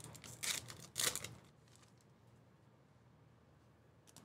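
Wrapper of an Upper Deck SP Authentic hockey card pack being torn open by hand: two short rips within the first second and a half.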